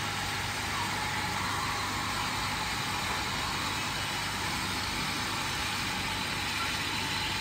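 Steady hiss and rush of steam venting from a stone-pot fish steamer under its woven conical lid as the fish steams.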